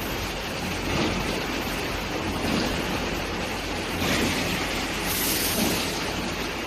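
Gabion wire mesh machine running: a steady mechanical noise over a low hum, swelling with each stroke about every second and a half.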